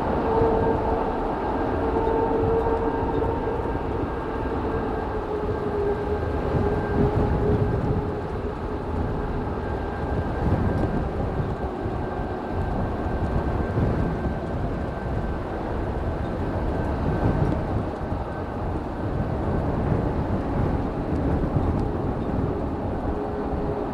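Boeing 737 MAX 8's CFM LEAP-1B turbofan engines whining steadily at low thrust while it taxis, over heavy wind rumble on the microphone.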